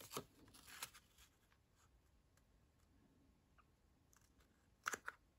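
Near silence with faint handling of cardstock layers being put together: a soft rustle at the start and a couple of short taps near the end.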